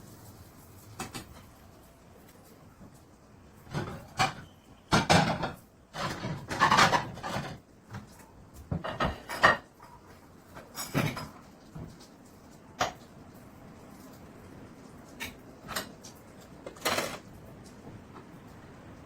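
A series of irregular knocks and short clattering noises with quiet gaps between them, busiest in the middle stretch.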